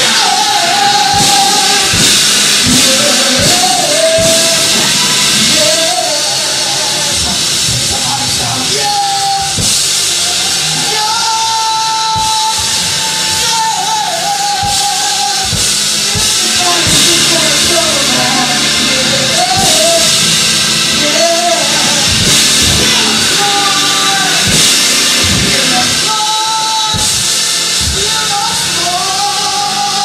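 Gospel worship song performed live: a lead vocalist singing a sliding, melodic line through a microphone over a band with drums and cymbals.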